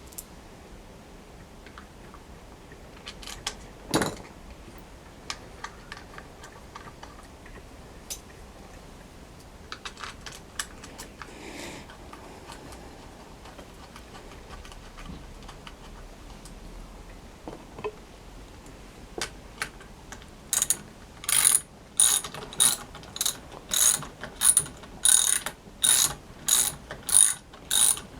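Tools and parts being handled, with scattered clicks and one sharp knock, then a hand ratchet wrench clicking in regular strokes, about two a second, from about twenty seconds in.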